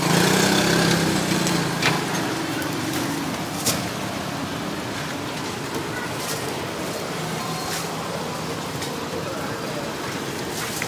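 Busy street ambience: a motor engine runs close by, loudest in the first couple of seconds, over steady street noise with faint voices and a few sharp clicks.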